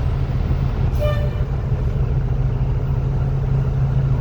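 Payphone dial tone from the handset's earpiece held up to the microphone, a steady low, husky hum, over street traffic. A short beep, like a horn toot, sounds about a second in.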